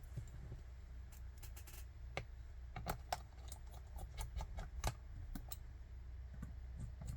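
Light, irregular clicks and taps from handling a laptop and its small parts, over a low steady hum.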